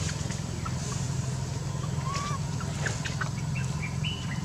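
Steady low rumble with a few short, high-pitched peeps and chirps scattered through it.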